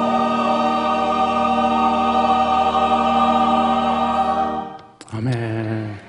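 Church choir holding the closing chord of a hymn, which fades out about three-quarters of the way through; a brief, separate pitched sound follows just before the end.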